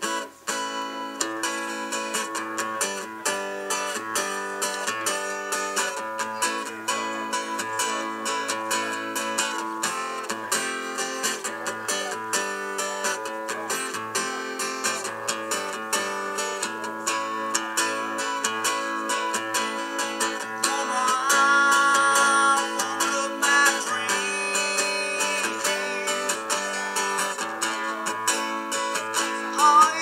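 Acoustic guitar strummed in a steady rhythm, with no singing, louder for a couple of seconds a little past twenty seconds in.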